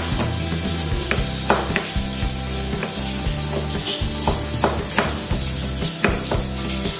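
Knife slicing shallots on a plastic cutting board, giving irregular sharp taps of the blade on the board. Eggplant frying in oil sizzles steadily behind it.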